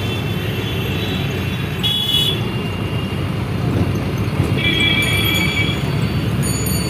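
Heavy city traffic: a steady rumble of engines with vehicle horns honking several times, the longest blast lasting about a second, heard from inside a moving vehicle with the window open.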